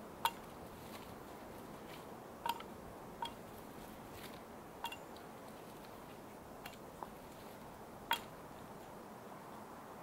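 Double-bit axe making light strokes on a thin sapling to trim it, about seven sharp cracks spaced irregularly a second or two apart, several with a brief ring, over a faint steady hiss.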